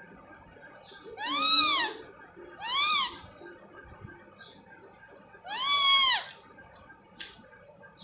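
Indian ringneck parakeet giving three drawn-out calls, each rising and then falling in pitch, the last two about three seconds apart. A short sharp click comes near the end.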